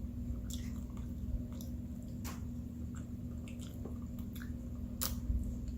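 Close-miked chewing: irregular wet smacks and clicks of a mouth eating, over a faint steady hum.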